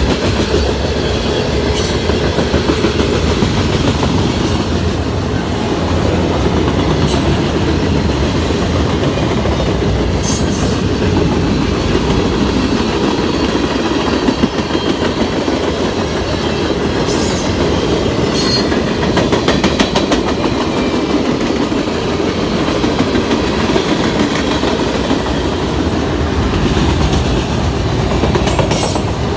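Freight train cars (coal hoppers, tank cars and autoracks) rolling steadily past, a continuous rumble with wheels clacking over the rail joints and a few brief high-pitched squeaks.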